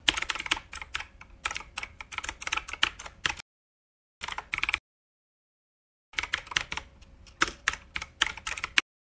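Computer keyboard typing: rapid key clicks in three runs, a long one, a short one and another long one, separated by dead silence.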